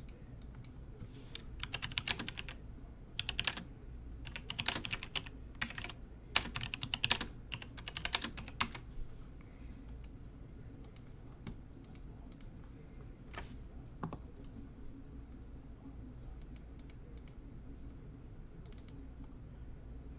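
Typing on a computer keyboard: quick runs of keystrokes for roughly the first nine seconds, then only a few scattered clicks.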